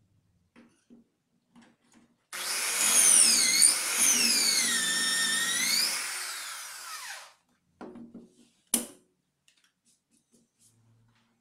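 Corded electric drill boring an angled pocket hole into a melamine board through a pocket-hole jig, its high-pitched whine dipping and rising in pitch under load for about five seconds, then winding down. A few knocks and one sharp clack follow.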